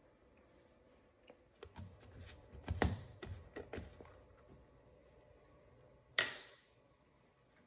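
A plastic gallon milk jug being handled and set down on a kitchen countertop: a run of light knocks and clatter, then one sharp knock about six seconds in.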